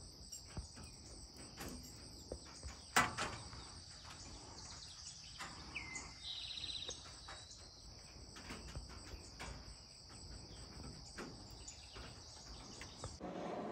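Steady, high-pitched chorus of insects in a summer yard, with a bird calling once about halfway through and a single sharp click about three seconds in. The chorus cuts off shortly before the end.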